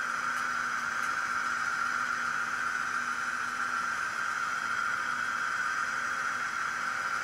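HO scale SDS Models NR class locomotive running on the layout track, with a steady whine and an even hiss that do not change.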